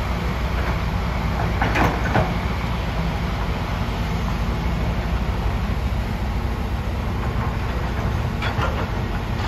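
Hitachi excavator's diesel engine running steadily under load as it dumps a bucket of soil into a dump truck. The load lands in the steel truck bed with a burst of clattering about two seconds in, and there is another brief clatter near the end.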